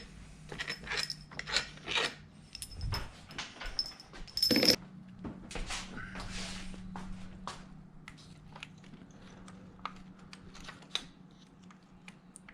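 Small loose metal parts being handled, clinking and rattling, with one louder metal clink about four and a half seconds in that rings briefly.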